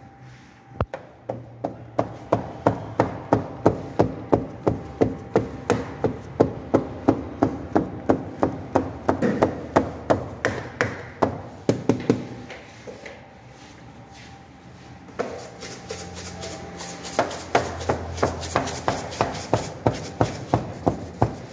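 Rhythmic tapping of a baker's fingertips docking barbari dough on a metal baking tray, about three taps a second. The taps stop for a couple of seconds past the middle, then resume more densely.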